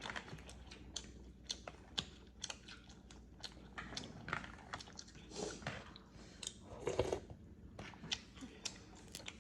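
A person chewing food close to the microphone: a string of short, irregular wet mouth clicks and smacks.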